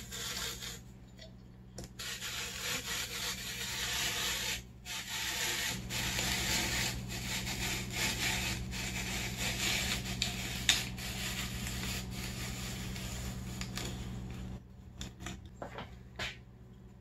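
Hand-cranked apple parer-corer-slicer at work: the blade peels the skin and the spiral slicer cuts through the apple as it is cranked along the threaded shaft, making a steady scraping noise. The scraping starts about two seconds in, breaks briefly about five seconds in, and stops near the end, followed by a few light clicks.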